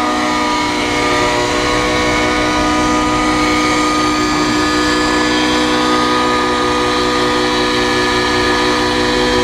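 Engine revved up and held at a steady high speed: a loud, steady, high-pitched whine with many overtones that holds one pitch throughout.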